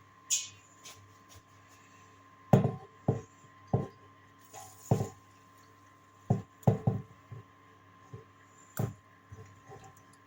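A series of separate knocks and clunks as dishes and a kettle are handled on a table, about seven in all, the loudest about two and a half seconds in. A faint steady hum runs underneath.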